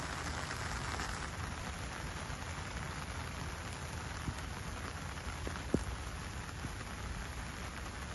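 Steady patter of falling water, with a few faint clicks, the sharpest just before six seconds in.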